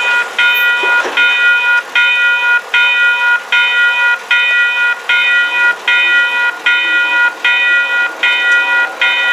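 Railway level-crossing warning bell ringing in an even, steady run of dings, about three every two seconds. Each ding is a held ringing tone that cuts off sharply. The crossing has been activated by an approaching train.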